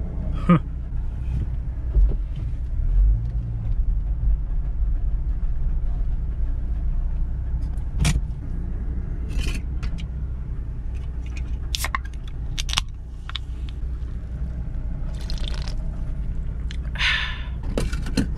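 Steady low rumble of a car idling, heard from inside the cabin, with scattered clicks and knocks as a drink can is handled. A short hiss comes near the end.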